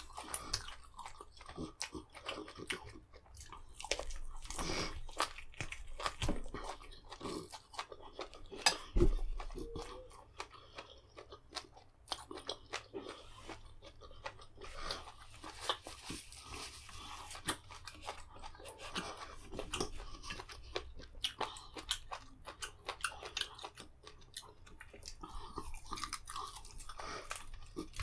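Close-up eating sounds of a man biting and chewing meat off a chicken drumstick, with many short mouth clicks and smacks. There is a single low thump about a third of the way in.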